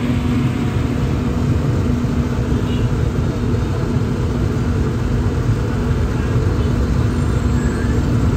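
Steady low rumble of background noise, like busy street or traffic ambience, with a low steady hum over it; it cuts off abruptly at the end.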